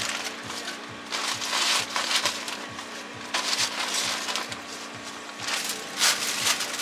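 Shredded cabbage dropped by hand from a plastic bag into a frying pan of noodles, sizzling and crackling in three bursts, with the bag crinkling. A steady low hum runs underneath.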